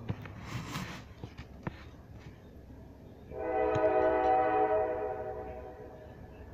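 A single long horn blast starting about three seconds in, one steady pitched tone held for about two seconds and then fading away. Faint clicks and a short rustle come before it, in the first second.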